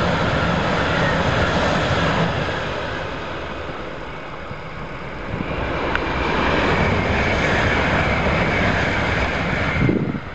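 Two Shinkansen bullet trains passing at speed: the pink-and-white Hello Kitty 500 series rushes by, the noise eases for a couple of seconds, then the yellow 923 Doctor Yellow inspection train passes with a steady rushing noise and a high whine. The sound stops suddenly near the end.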